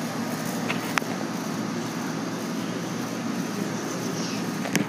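Air-conditioning condensing unit running, a steady hum of compressor and fan. Two sharp clicks, one about a second in and a louder one near the end.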